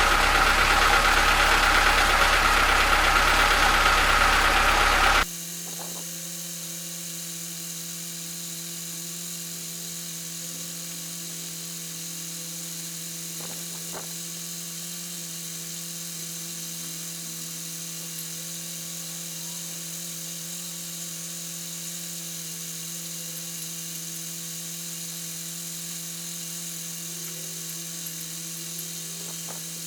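Homemade air compressor running loudly, cutting off abruptly about five seconds in. A steady low hum with a few faint overtones carries on after it.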